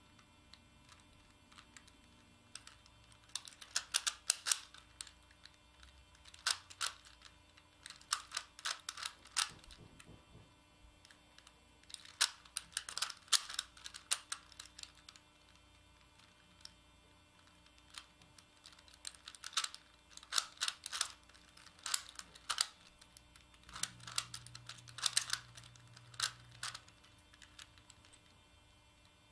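Megaminx puzzle being turned by hand: its plastic faces click and clack in quick bursts of several turns, with short pauses between the bursts.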